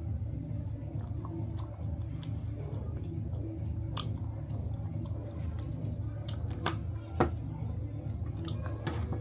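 Close-miked chewing and wet mouth sounds of a person eating, going on steadily with scattered small clicks and a sharper click about seven seconds in.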